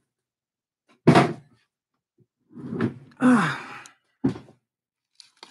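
Dull thumps and handling noises from a bubble-wrapped package being moved and set down, in three short bursts.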